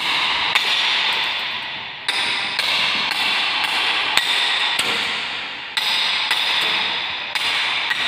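A series of irregular hammer blows, about ten, with a continuous hiss underneath, during repair work on a feed grinder part.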